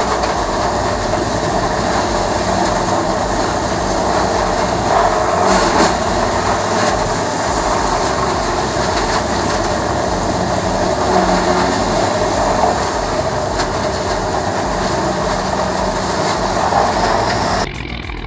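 Morbark 1300 grinder running and grinding lumber scraps: a loud, steady, dense mechanical rush with a faint high whine over it, cutting off suddenly near the end.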